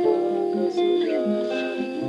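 Music: a guitar-led gospel piece with sustained pitched notes.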